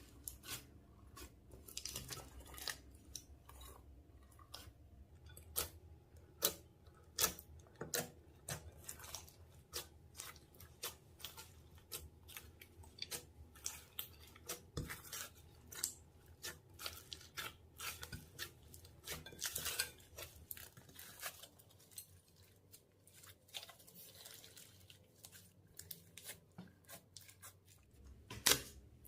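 Slime being worked and squeezed by hand, giving irregular sticky clicks, crackles and pops several times a second, sparser for a few seconds near the end.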